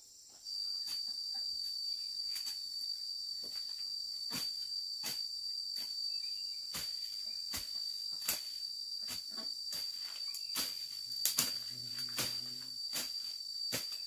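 An insect's steady, unbroken high-pitched trill that starts about half a second in, with scattered light clicks and knocks.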